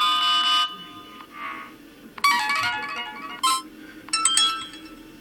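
Built-in ringtones of a DEXP Ursus NS110 Android tablet playing through its speaker, one after another. Several short melodic snippets of different tunes each start and cut off after half a second to a second.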